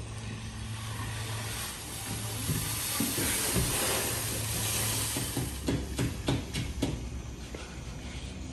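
Long-handled bull float scraping across freshly poured wet concrete as it is drawn back toward the worker, a rough hiss that swells and fades. A quick run of sharp clicks and knocks follows about six seconds in.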